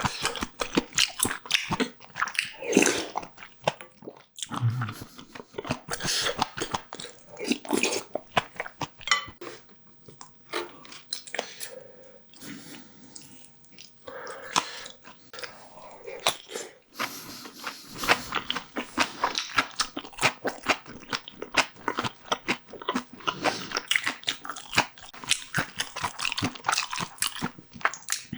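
A person eating close to the microphone: quick, irregular biting and chewing sounds.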